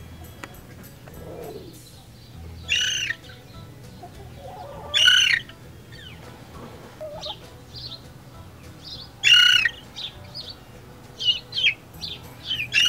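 Young Mille Fleur d'Uccle bantam cockerel making short, squeaky, high-pitched crow attempts, four in all, each rising and falling, with softer chirps between them. This is an immature cockerel's first crowing, still thin and broken off.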